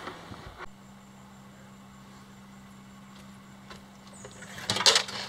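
A faint steady low hum, then, near the end, a short loud burst of rustling and knocks as someone moves right up against the microphone.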